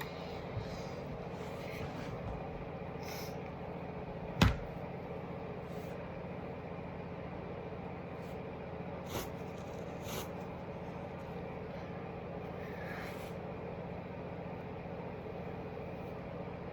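Steady low electrical or fan-like hum. One sharp knock sounds about four and a half seconds in, with a couple of faint ticks later.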